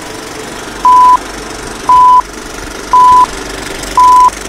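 Film-leader countdown beeps: a short, loud, steady single-pitch beep once a second, four times, over a steady background noise.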